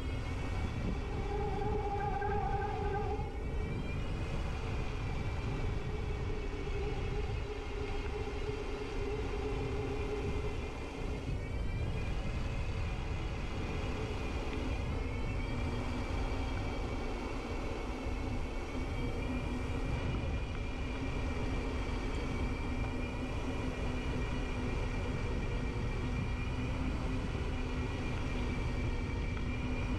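Steady rumbling noise with faint whining tones that waver slightly in pitch.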